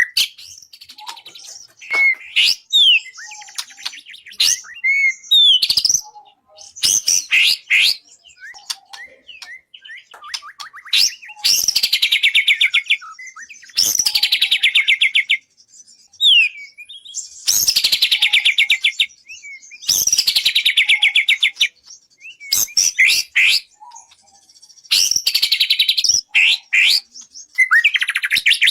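Songbird singing as a masteran (tutor song for training murai): quick varied whistles and chirps broken by about five loud, buzzy rattling trills, each lasting a second or two.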